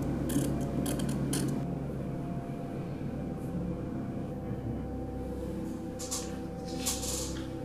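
Felt-tip marker scratching short strokes on paper, several quick strokes in the first second and a half, over a low steady drone. A few soft rustles about six to seven seconds in.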